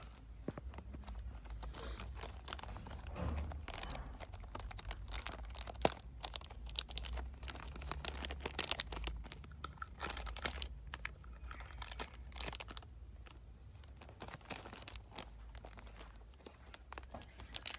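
Plastic packaging crinkling and tearing as it is handled and opened by hand, with many irregular rustles and small clicks.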